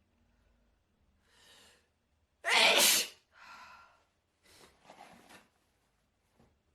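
A person with a bad cold sneezing once, loudly, about two and a half seconds in, after a short build-up breath. Quieter breathy sounds follow just after the sneeze and again around five seconds in.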